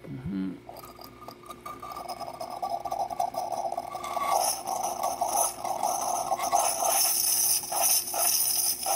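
Steam wand of a Saeco Incanto Rapid Steam espresso machine starting up into a stainless steel milk pitcher while it builds pressure: a rising, sputtering rush, joined about four seconds in by a hiss that keeps growing louder.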